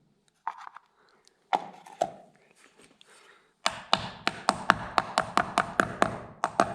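Hammer tapping a new wheel bearing into a lawn mower wheel: a few separate taps, then, about halfway through, a quick steady run of light taps, about four or five a second.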